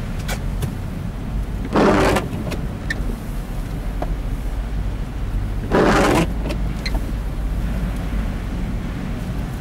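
A car's steady engine and tyre rumble on a wet road, heard from inside the cabin. Twice, about four seconds apart, comes a short swish as the windscreen wipers sweep the rain-wet glass on an interval setting. Light ticks of raindrops sound in between.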